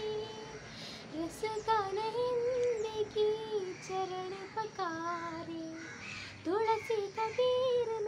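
A girl singing solo without accompaniment: a slow melody with long held notes.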